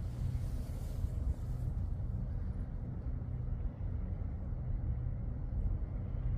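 Steady, low engine rumble with an even hum.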